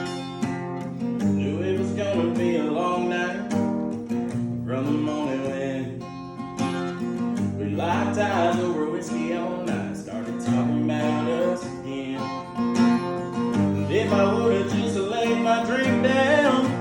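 Country song with a strummed acoustic guitar and a singer's voice coming in phrases.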